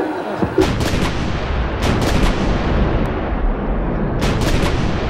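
Loud, distorted crowd noise from a packed arena, with three quick clusters of sharp cracks spread through it.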